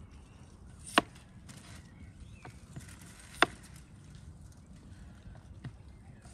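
Kitchen knife knocking on a wooden cutting board as vegetables are cut: two sharp knocks about two and a half seconds apart, with a few fainter taps between and after.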